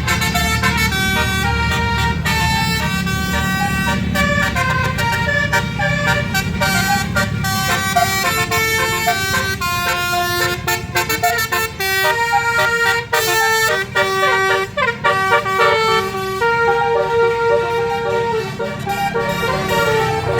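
A bus's 12-note basuri telolet horn playing a tune of held musical notes that step from pitch to pitch, over a steady low rumble.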